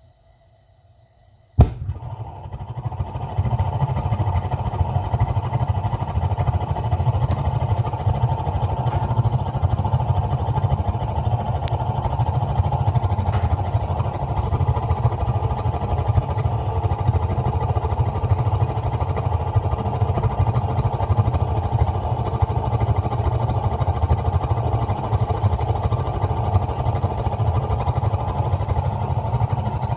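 Gas water heater burner lighting with a sudden whoosh about a second and a half in, then burning steadily with a low, even rush of flame.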